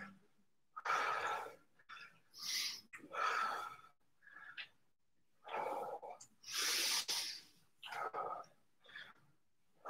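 A man breathing hard, with a series of loud, rushing inhales and exhales about a second apart, from the exertion of wide-stance dumbbell squats.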